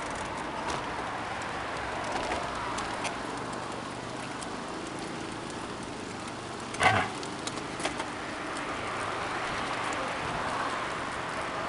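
Steady crackling hiss of wheels rolling on asphalt from inline skates and bicycles, with scattered small clicks and one sharp knock about seven seconds in.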